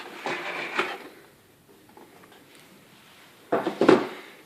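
Things being handled and moved about on a desk: a brief rustle and knocking at the start, then a louder cluster of knocks and clatter about three and a half seconds in.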